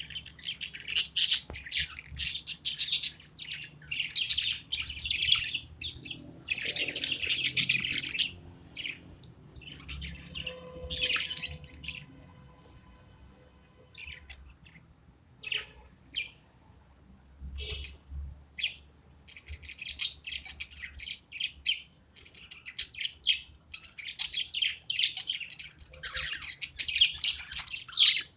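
Budgerigars chattering and chirping in busy bouts, with a quieter stretch of scattered chirps in the middle.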